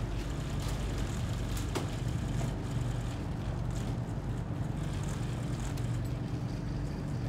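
Steady low hum of an idling motor vehicle's engine against street noise, with a few faint clicks.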